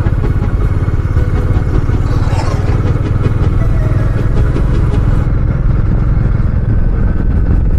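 Royal Enfield Meteor 350's single-cylinder engine running steadily as the motorcycle rides along.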